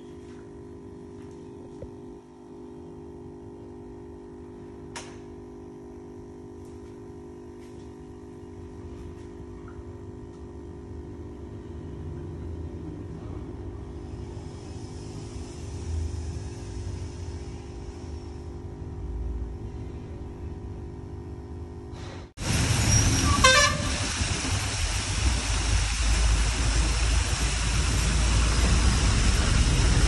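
A steady hum of several low tones, then, about three-quarters of the way through, an abrupt switch to loud, steady rushing and splashing of a water fountain's jets, which keeps growing louder.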